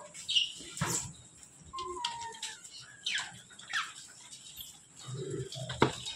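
Bonnet macaques scrambling over a plastic crate of bananas: scattered short, high squeaks and chirps, some falling in pitch, with two sharp knocks, one about a second in and a louder one near the end.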